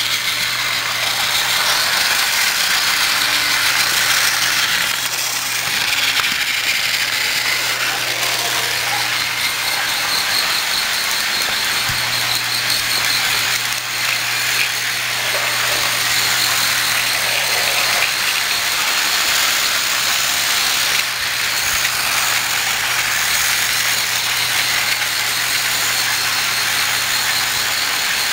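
Battery-powered Trackmaster toy trains running on plastic track: small electric motors whirring steadily with the wheels and cars rattling over the track joints, over a low steady hum.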